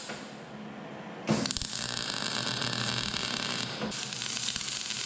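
Wire-feed welder's arc crackling and hissing as a bead is laid on sheet steel. The arc strikes sharply about a second in, runs for about two and a half seconds, breaks off for an instant, then starts again.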